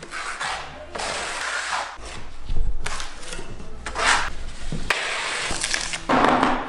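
Steel trowel scraping and spreading tile adhesive across OSB board, in a series of scraping strokes about one a second.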